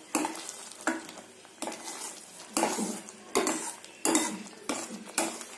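A spoon stirring thick palak paneer gravy in a steel pot: about eight steady strokes, each scraping and knocking against the side of the pot.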